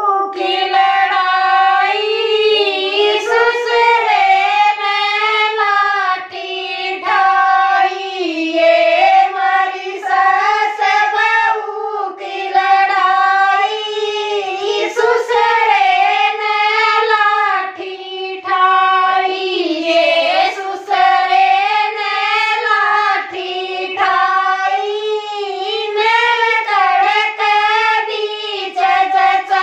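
Women singing a Haryanvi jakdi folk song unaccompanied, a high, wavering melody in phrases of a few seconds with no drum or instrument.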